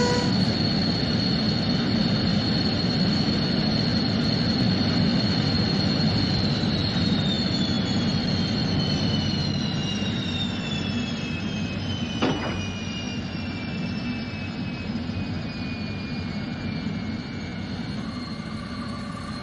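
Jet-engine roar with a high turbine whine that slides slowly down in pitch from about six seconds in, the whole sound gradually fading. A brief swish cuts through about twelve seconds in.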